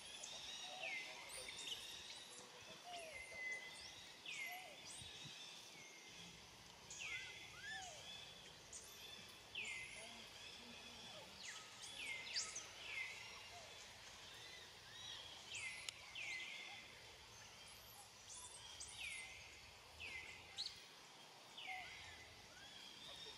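Faint, repeated high-pitched animal calls, each a short downward-sweeping note, about one a second, over a quiet outdoor background.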